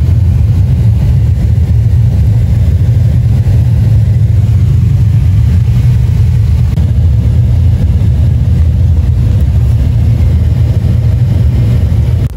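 A car driving on a gravel road, heard from inside the cabin: a loud, steady low rumble of engine and tyres on the gravel.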